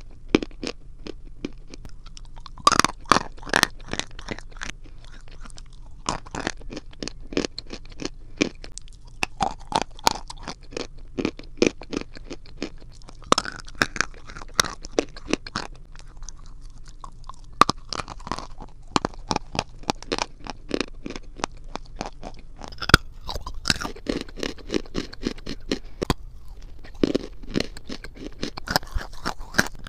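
A person biting and chewing chunks of chalk and clay close to the microphone: rapid, crisp cracks and crunches come in clustered bursts as the brittle pieces break between the teeth.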